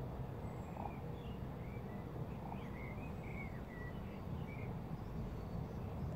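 Small songbirds chirping in short, high, bending calls, scattered throughout, over a steady low rumble.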